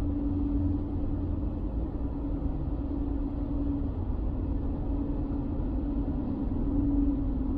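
Car driving along a two-lane highway, heard from inside the cabin: a steady low engine and road rumble with a hum that fades in the middle and comes back near the end.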